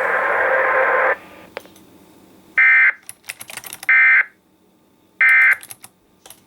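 Weather radio hiss that cuts off about a second in, followed by three short bursts of Emergency Alert System SAME data tones, about 1.3 s apart: the end-of-message code that closes the warning. Keyboard clicks sound between the bursts.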